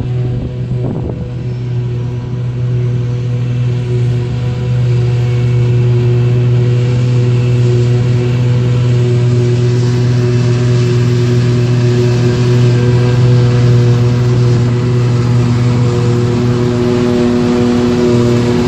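Claas Jaguar 870 self-propelled forage harvester chopping grass, with a Claas Axion tractor pulling a forage wagon alongside: a steady heavy machine drone with a deep hum, getting louder over the first few seconds as the machines draw near.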